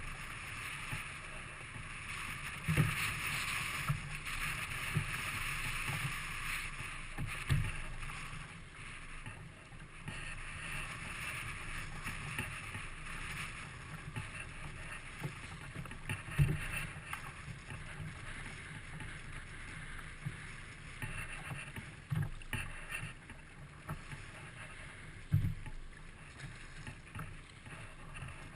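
Steady hiss of wind and water around a sea kayak on choppy water, broken by short dull thumps at uneven intervals.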